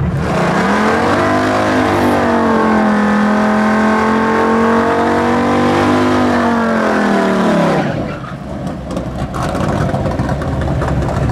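Early-1960s Plymouth super stock drag car doing a burnout. The engine revs up over the first two seconds and holds high revs for about five seconds while the rear tyres spin. About eight seconds in it drops back to a lower, rougher run.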